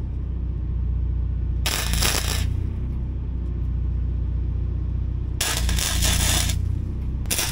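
Wire-feed welder tack-welding a sheet-steel patch onto a truck floor pan: three bursts of arc crackle, each about a second long, the last starting near the end. The welds are laid in short spots so the thin metal doesn't overheat. A steady low hum runs underneath.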